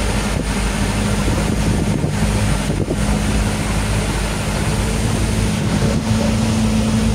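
Truck engine running steadily while the truck drives over a bumpy road, with a constant low engine hum and rumbling road noise.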